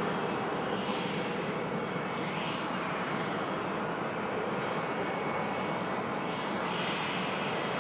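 Boeing 787-8 airliner's Rolls-Royce Trent 1000 turbofans running in a steady jet roar during the landing rollout, as the aircraft slows down the runway just after touchdown.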